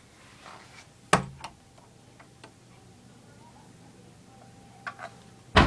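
A few scattered sharp clicks and knocks, a loud one about a second in and two more loud ones near the end, over a low steady hum.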